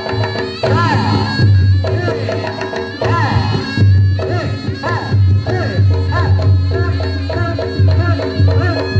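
Live Reog gamelan music amplified through a small sound system with a single subwoofer: drums and gongs keep a steady beat under a wavering, bending high melody, with a heavy, steady bass.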